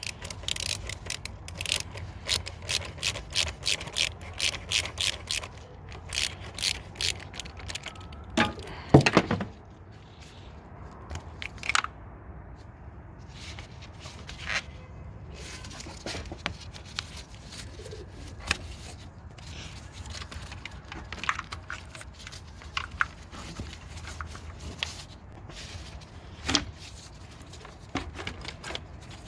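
A hand ratchet clicking in quick, even strokes, about three a second, as a hose clamp on a car's intake pipe is undone. After about six seconds it gives way to a few loud knocks near nine seconds, then scattered clicks and scrapes as the rubber intake pipe is worked off.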